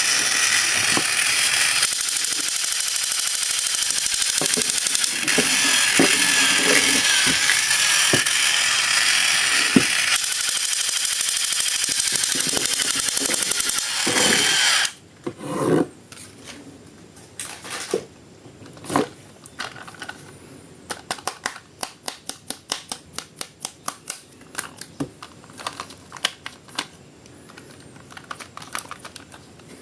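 Plastic packaging rustling and crinkling for about the first half, then many sharp plastic clicks, coming quickly for several seconds near the end, as a plastic action figure is handled and its joints are moved.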